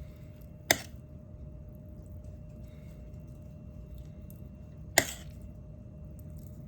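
Two sharp clicks, about four seconds apart, over a low steady hum.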